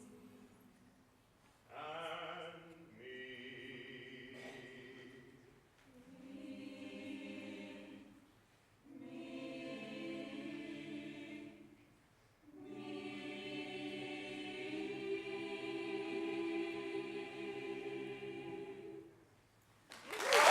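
An a cappella vocal group sings soft, held chords in a handful of short phrases with brief pauses between them; the longest phrase is near the end. Applause breaks in right at the close.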